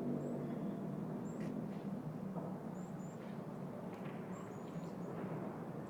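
City park ambience: a steady low hum of city traffic, with small birds giving short, high chirps several times, several in quick succession near the end.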